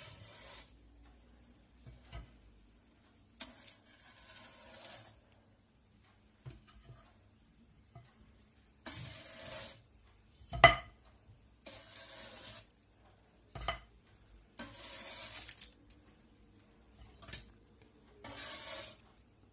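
Metal slotted spatula scraping under baked cookies on baking paper on a metal baking tray, with the paper crinkling. It comes in several separate strokes of about a second each, with a few light clicks and one sharp clack about ten seconds in, the loudest sound.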